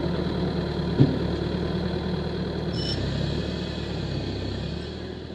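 Same Dorado 86 tractor's diesel engine running steadily, with the home-built saw-splitter attached, and one sharp knock about a second in. The sound fades out near the end.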